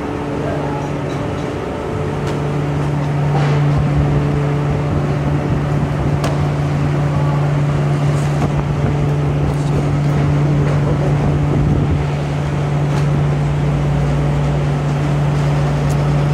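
Steady low hum of a veneer dryer and its fans running, with a few light knocks as veneer sheets are handled.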